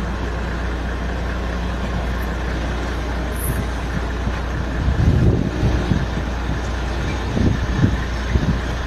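Idling vehicle engine with a steady low hum, joined from about five seconds in by irregular low thumps and rumbles.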